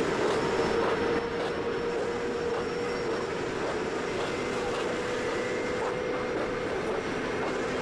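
Steady running noise of high-speed trains at speed, heard from aboard a moving train: an even rush of wheels and air with a steady hum underneath, dropping a little in loudness about a second in.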